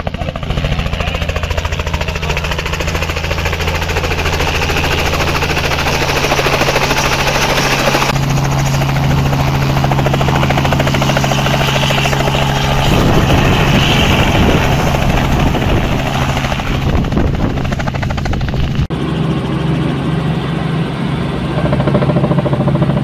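Light piston-engined helicopter, a Robinson R44, running steadily: engine and rotor loud and continuous, with a rhythmic rotor beat near the hover. Near the end the sound is heard from inside the cabin.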